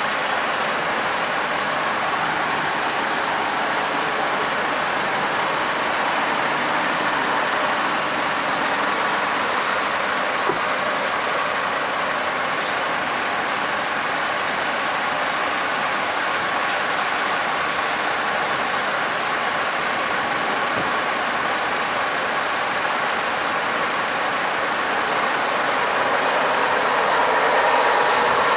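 Steady rain falling on wet asphalt: an even hiss that swells slightly near the end.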